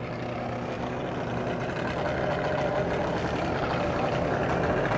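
Two-stroke outboard motors idling with a rattle, growing gradually louder.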